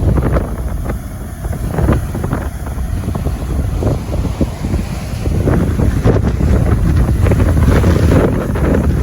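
Storm wind buffeting the microphone: a loud, heavy low rumble that swells and eases in gusts, strongest in the second half.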